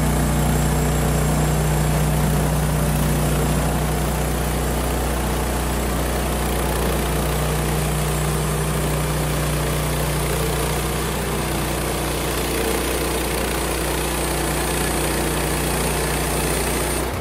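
Woodland Mills HM130MAX portable bandsaw mill's gas engine running steadily at speed, driving the band blade as the saw head is pushed through a cut in a timber cant.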